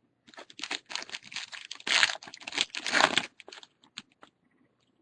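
A trading-card pack's wrapper crinkling and tearing as the pack is opened, with cards rustling and clicking in the hand. It dies away to a few clicks after about three and a half seconds.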